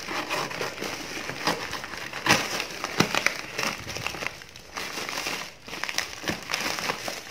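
Black plastic courier bag crinkling and rustling as it is cut open with scissors, with scattered sharp snips and clicks of the blades.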